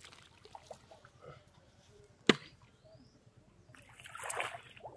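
A single sharp knock about halfway through, then a short splash near the end as a foot steps into shallow pond water.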